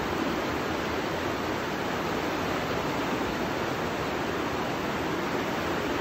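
Fast river rapids rushing over boulders: a steady, unbroken whitewater roar.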